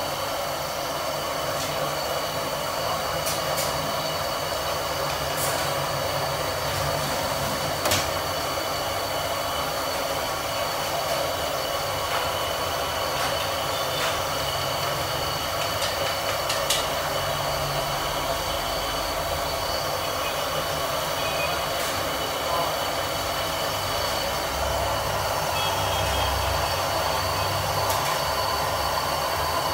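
Gas burner flames running steadily under a frying pan of clams in water at a hard boil, a continuous rushing hiss, with a couple of brief sharp clicks.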